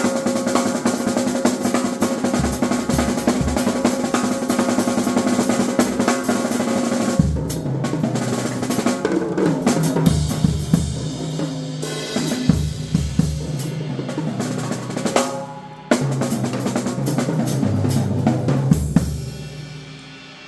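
Drum kit solo: fast snare rolls and rimshots over bass drum hits, with cymbals washing on top. The playing drops off briefly about three-quarters of the way through, comes back hard, then winds down near the end with a cymbal ringing out.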